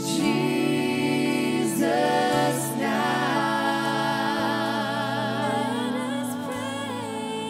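Live worship band playing a slow praise song: several singers holding long, wavering notes over sustained keyboard and guitar chords, with a few soft low drum beats.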